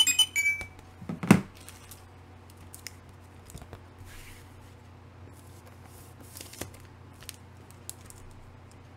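A short run of electronic tones at the start, then a loud knock about a second in as a comic book is set down on the countertop, followed by quiet rustling and clicks of a comic book in its plastic bag and backing board being handled.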